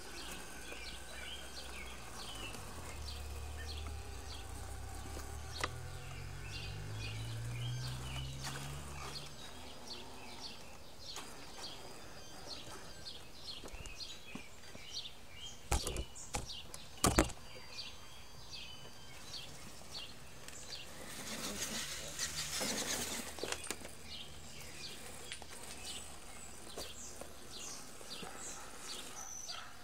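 Birds chirping repeatedly over outdoor background noise. A low hum rises slowly in pitch during the first several seconds. Two sharp knocks come about halfway through, and a brief rush of noise a few seconds later.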